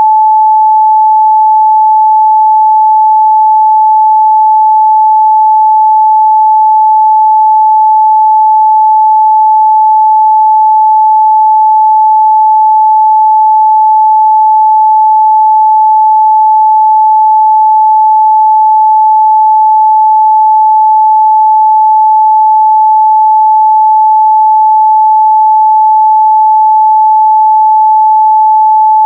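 Steady, loud 867 Hz sine-wave test tone, a single pure pitch held without change.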